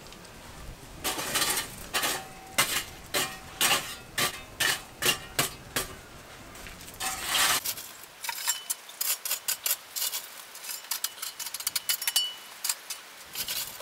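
A metal shovel scraping and digging into hot coals and ash, a series of about ten scrapes. From about eight seconds in comes a quick run of small clinks and ticks as the coals are tipped onto a cast-iron stove base.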